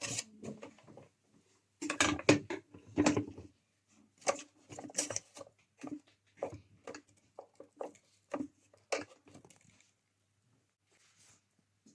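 Irregular clicks, knocks and pops from a drip coffee maker that is switched on and loaded with water and coffee, dying away about ten seconds in, over a faint steady low hum.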